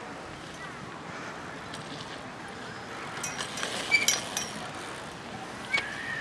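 BMX bike rolling past on a dirt track, with a cluster of metallic clinks and rattles from the chain and frame about three to four seconds in as it passes close.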